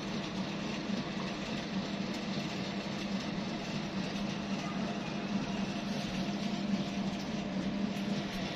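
Steady mechanical drone: a constant low hum under an even hiss, holding level throughout.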